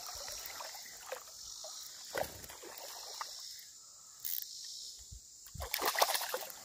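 A hooked largemouth bass being fought and reeled in on a spinning reel, with water splashing and scattered knocks; the loudest burst comes near the end.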